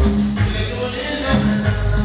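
Latin dance music played loud over a sonidero sound system, with a steady bass line.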